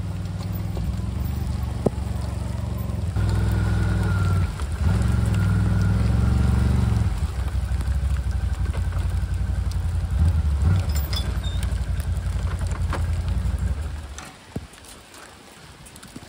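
Can-Am ATV engine running under load as it tows a log on a log arch, picking up revs about three and five seconds in, then shutting off about fourteen seconds in.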